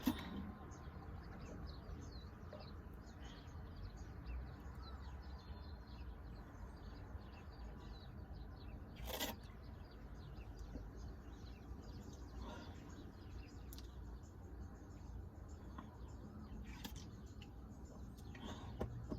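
Faint steady background hum with scattered faint, short high chirps and ticks, and one sharp click about nine seconds in.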